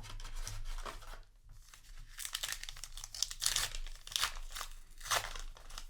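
A trading card booster pack wrapper being torn open and crinkled: a run of rips and rustles, loudest in the middle.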